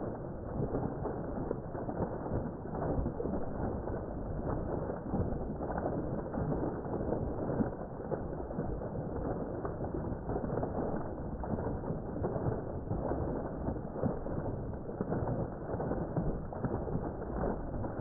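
A strong jet of water pouring into a pond, gushing and splashing steadily.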